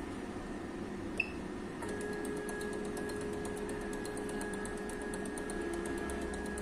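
A short high keypad beep from a Sensa Core ST-200 Plus electrolyte analyzer about a second in. Shortly after, the analyzer's internal motor starts up with a steady whine and rapid ticking as it begins its daily cleaner routine.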